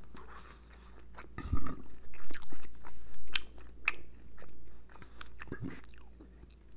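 A person chewing crispy beef, with irregular crunches and wet mouth clicks; the loudest crunches come between about one and a half and four seconds in.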